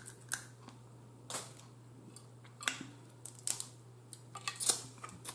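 Close-up eating sounds of baked blue crab being picked apart by hand: irregular sharp clicks and cracks of shell pieces breaking, mixed with mouth sounds, over a faint steady low hum.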